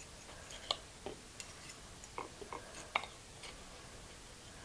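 Knife and fork cutting through a cabbage roll on a plate: faint, scattered clicks and scrapes of cutlery against the plate, the sharpest a little under a second in and about three seconds in.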